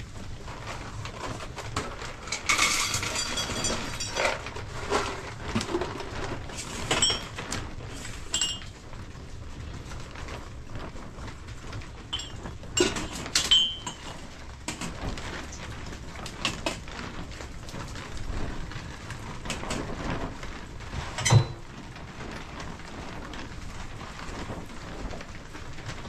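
Scattered clinks and knocks over a steady low background noise, with a short ringing, pitched sound about three seconds in and another near the middle.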